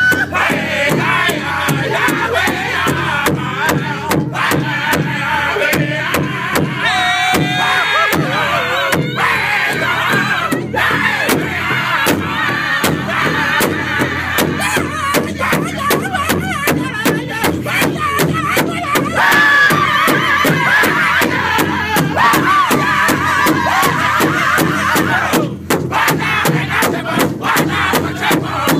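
Powwow drum group singing in high, wavering voices while several men beat a large shared powwow drum in a steady beat.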